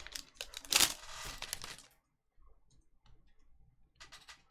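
Foil wrapper of a Panini Select trading-card pack crinkling and tearing as it is pulled open. It is loudest about a second in and stops about two seconds in.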